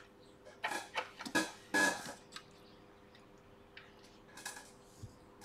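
Small clicks, taps and rustles of a laptop logic board and its parts being handled and fitted back into an aluminium MacBook Pro case on a rubber mat. There is a cluster of them in the first two seconds and a few lighter taps near the end, over a faint steady hum.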